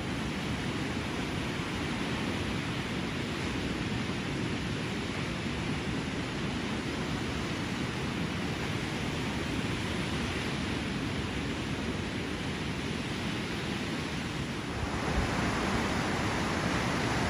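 Ocean surf on a beach: a steady wash of waves breaking, growing a little louder and brighter about fifteen seconds in.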